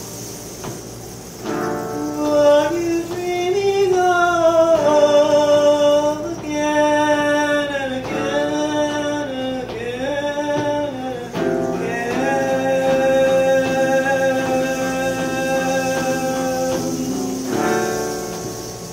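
A singer holding long, gliding notes without clear English words over plucked guitar.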